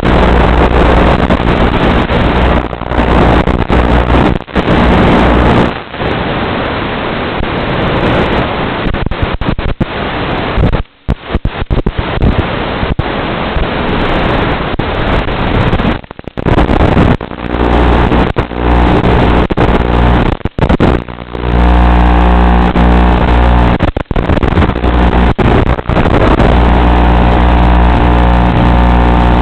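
Electric motor and propeller of a small FPV RC plane under power, picked up by the onboard microphone. A steady, noisy buzz with a low hum and wind rush runs throughout, broken by a few brief dropouts.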